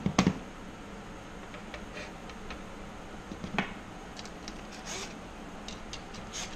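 Handling clatter of a screwdriver on metal fuel pump clamps: a sharp knock cluster at the start, another knock about three and a half seconds in, and light clicks between, as the clamp screws are worked loose.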